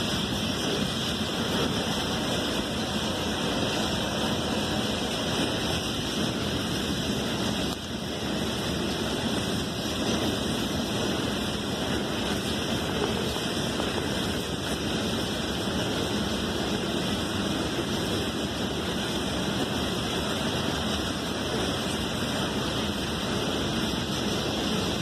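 A train's cars rolling past close by, a steady rush and rumble of wheels on the rails that dips briefly about eight seconds in.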